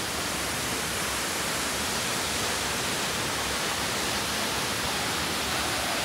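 Waterfall rushing steadily as it pours into a pool, growing a little louder toward the end.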